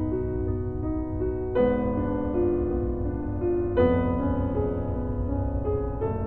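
Slow, quiet piano music with a new chord struck about every two seconds, the notes left ringing, over a low steady rumble.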